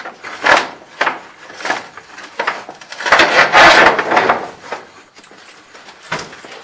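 Irregular knocks and rattles from sewer inspection camera gear being handled as the camera push cable is worked through the line, with a longer scraping rustle about three to four and a half seconds in.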